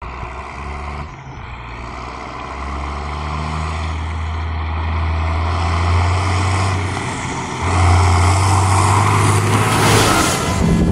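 Farm tractor engine running as the tractor drives toward the microphone, growing steadily louder, with a rush of noise as it passes right overhead near the end.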